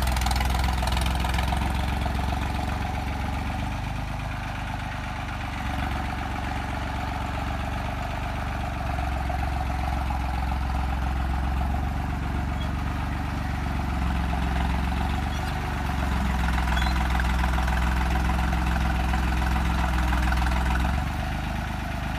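New Holland 3630 tractor's three-cylinder diesel engine running under load as the tractor reverses. Its low engine note rises and eases several times as the throttle changes.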